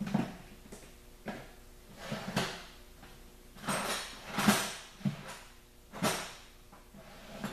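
Hand tools and metal parts handled: a string of irregular clanks, knocks and short scrapes, the loudest about halfway through.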